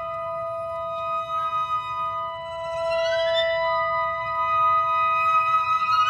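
Chamber ensemble music: held woodwind notes sound steadily while a violin plays rising glides that imitate a kiwi's call, twice, about three seconds apart.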